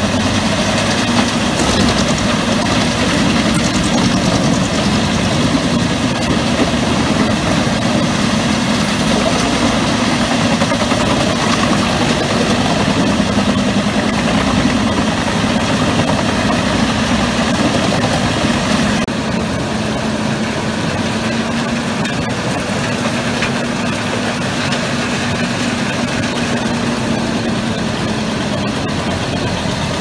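Pezzolato PTH 1200/1000 M drum wood chipper running under load, its Scania DC16 16-litre V8 diesel working steadily while the drum chips logs into wood chips: a dense, continuous machine noise with a steady hum. About two-thirds of the way through it turns slightly quieter and thinner.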